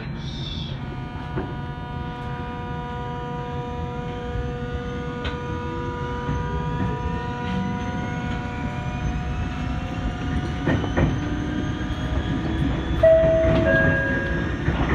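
Electric train pulling away, its inverter and traction motors whining in rising tones as it gathers speed over rumbling rail noise, heard from inside the car. A brief stepped tone sounds near the end.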